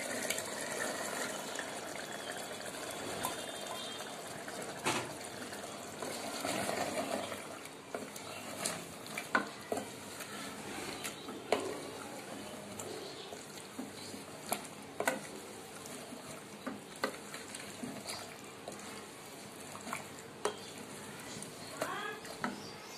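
Wooden spoon stirring cluster beans into a sizzling mutton masala in an aluminium pressure cooker: a steady frying sizzle with irregular sharp knocks of the spoon against the pot.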